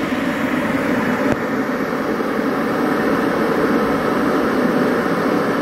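Philips HD9357 electric kettle heating water, a steady hiss from the water as the 2200 W element heats it. It is the sign that the repaired base connector now passes power.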